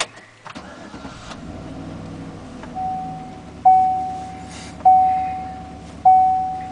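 Chevrolet Silverado V8 engine starting about half a second in and settling to a steady idle. Over it, the dashboard warning chime dings repeatedly, about once every 1.2 seconds. Each ding is loud and dies away.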